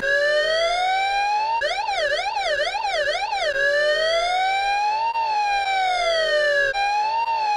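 A police-style siren: a slow rising and falling wail, broken by a faster up-and-down yelp of four cycles a little after a second and a half in, then another slow rise and fall and a short one near the end.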